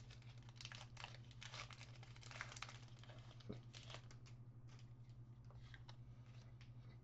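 Faint crinkling and rustling of trading cards and their foil pack wrapper being handled, busiest in the first few seconds and sparser after, over a steady low hum.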